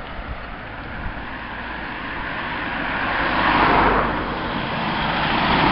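Road traffic: a vehicle passing, a steady rushing noise that swells about three and a half seconds in and rises again near the end.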